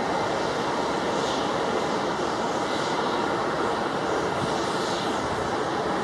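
Boeing 777-300 airliner's twin jet engines on final approach at low thrust, a steady, even rush of jet noise as it flares over the runway for landing.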